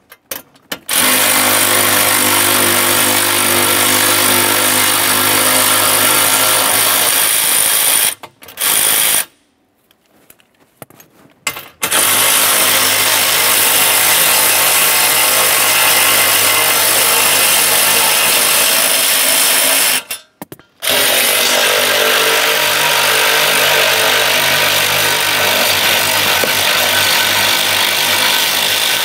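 Power ratchet spinning 8mm bolts out of a steel plate, running steadily for about seven or eight seconds at a time. Between runs there are short breaks with a few handling clicks, about eight and twenty seconds in.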